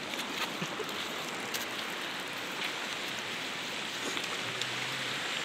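Shallow river flowing over stones: a steady rushing of water.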